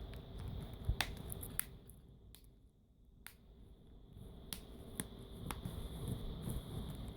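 Plastic back cover of a Samsung Galaxy Tab 3 being pressed back onto the tablet, its clips snapping into place with about seven sharp clicks, spread unevenly over handling noise.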